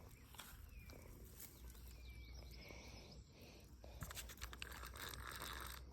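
Faint rapid clicking of a Zebco push-button spincast reel being cranked to bring the lure in, starting about four seconds in. Faint outdoor ambience with thin bird calls comes before it.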